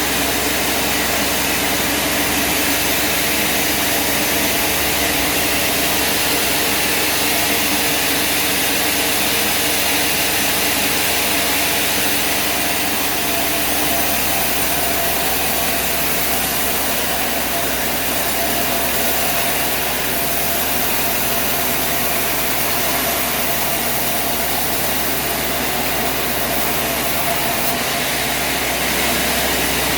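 Engine-driven machinery running steadily: a constant drone with a wide hiss over it and no breaks.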